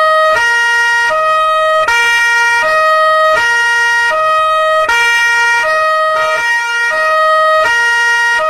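French police two-tone siren sounding its alternating high and low notes, each held about three-quarters of a second, in a steady repeating cycle.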